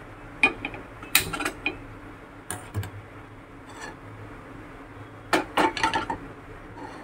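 Sharp clicks and knocks as a gas stove burner is lit, then a cluster of metal knocks about five seconds in as a non-stick kadai is set down on the burner's pan supports.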